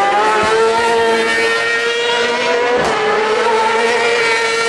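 Superbike racing motorcycle engine held at high revs as the bike runs past along the track. The note climbs at the start, holds steady and high, and breaks off briefly about three seconds in before picking up again.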